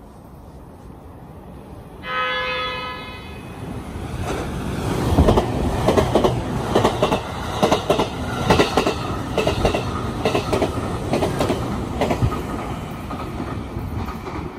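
Relay Kamome limited express electric train sounding a single horn blast of about a second, about two seconds in, then passing at high speed: a loud rumble with a quick, repeated clatter of wheels over rail joints.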